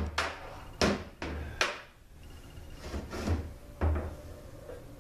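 Metal transmission parts being handled on a workbench: a handful of sharp clunks and knocks, several in the first two seconds and two more near the four-second mark.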